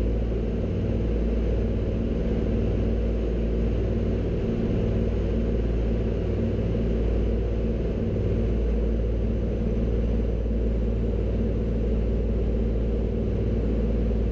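Twin Armstrong Siddeley Cheetah radial engines of an Avro Anson running at a steady drone, heard from inside the cockpit, most likely at full power for the takeoff and climb-out.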